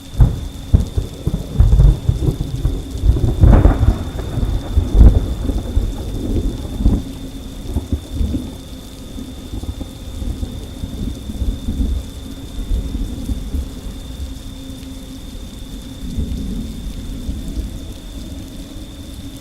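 Thunderclap breaking out suddenly over steady rain: a loud, crackling rumble for several seconds that fades into a long, lower rumble while the rain keeps falling.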